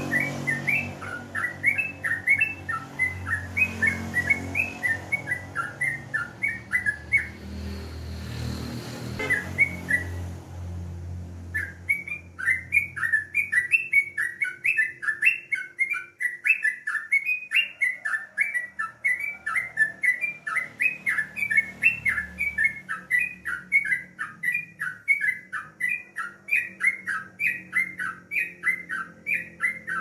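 Caged yellow-vented bulbul chattering in a fast, unbroken run of short bubbly notes, breaking off for a few seconds about a quarter of the way in and then carrying on. A low rumble sits under the song for the first twelve seconds or so.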